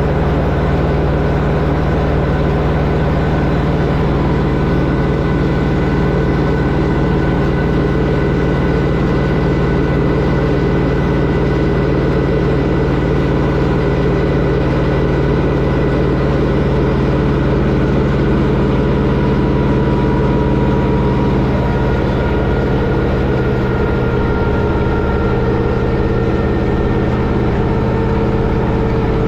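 Allis-Chalmers tractor engine running steadily, most likely driving a post hole digger, with a slight shift in engine pitch about three-quarters of the way in.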